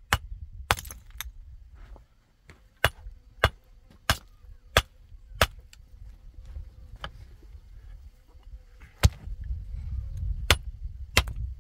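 Hammer striking stone to split it into flat slabs: sharp cracks, a steady run of about one every two-thirds of a second, a pause of a few seconds, then a few more strikes near the end.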